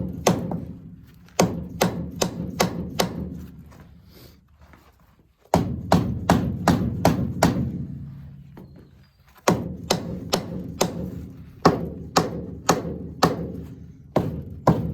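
Hammer blows on the Rumely 6A's cylinder head, struck about twice a second in three runs with short pauses between, each blow leaving a brief low ring. The tapping is meant to jar the rusted head loose from its head gasket.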